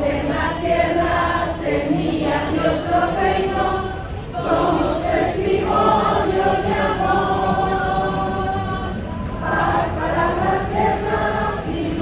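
A crowd of churchgoers singing a hymn together as they walk, in long held phrases of a few seconds each, with short breaks for breath about four seconds in and again near nine seconds.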